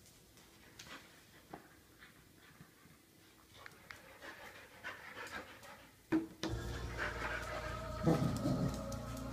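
A dog panting softly, with a few light clicks and taps. About six seconds in there is a sharp click, and then television sound with music comes on and carries on.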